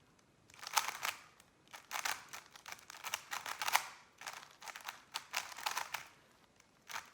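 Rubik's Cube layers being turned fast, a rapid clatter of plastic clicks coming in short runs with brief pauses between them.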